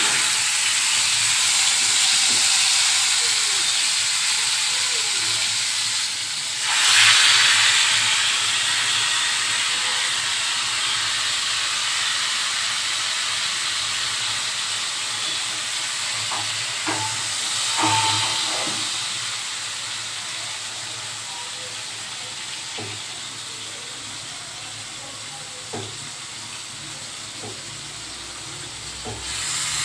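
Marinated chicken pieces sizzling in hot sunflower oil in a kadai as they are laid in. A steady hiss, with louder surges about seven and eighteen seconds in and a few light knocks against the pan.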